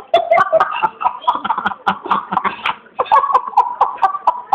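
Laughter and muffled vocal sounds from a man whose mouth is being held shut by hands, broken into short bursts, with sharp clicks and knocks throughout.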